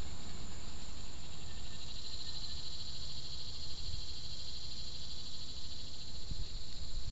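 Steady high-pitched drone of insects, a little stronger in the middle, over a low steady rumble.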